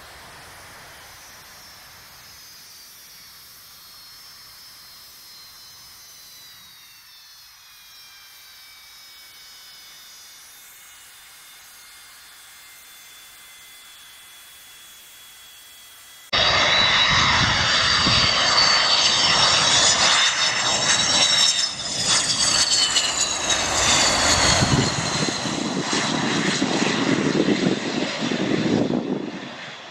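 A jet airliner's engines heard faintly as a high whine that slowly falls in pitch while it rolls along a snowy runway. About halfway the sound cuts abruptly to much louder, close-up aircraft engine noise: a rushing roar with a high turbine whine that wavers up and down.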